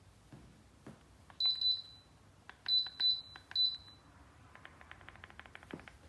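Electronic button beeps from a Dreo Cruiser Pro tower fan's control panel: five short high beeps in three groups, followed near the end by a quick run of light clicks, about ten a second.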